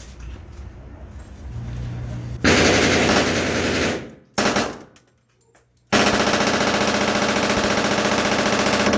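Thompson submachine gun firing full-auto in .45 ACP: a burst of about a second and a half, a short burst, then a long burst of about three seconds of rapid, evenly spaced shots.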